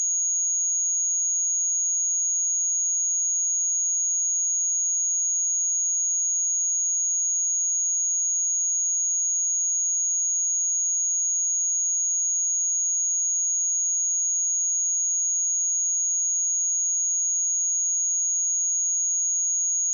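A pure 6664 Hz sine-wave test tone, a single steady high-pitched whistle held at constant level with nothing else.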